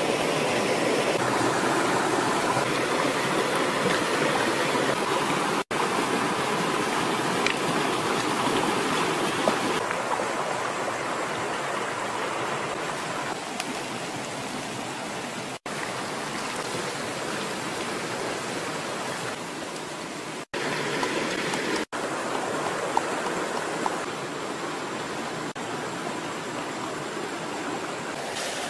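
A rocky stream flowing, a steady rush of running water, broken by a few very short gaps.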